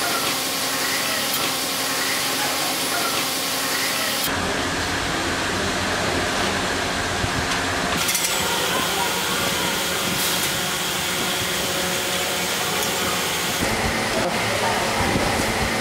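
Steady workshop noise: a machine-like hum and hiss with faint voices, changing abruptly several times.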